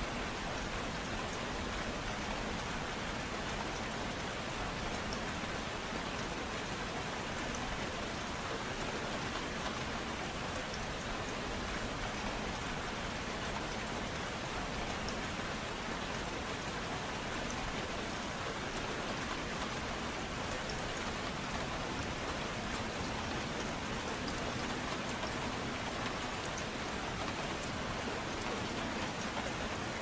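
Gentle rain falling steadily, an even hiss of many drops with no thunder.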